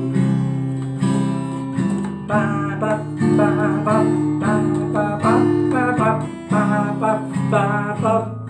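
Acoustic guitar strummed in a steady rhythm, playing simple chords.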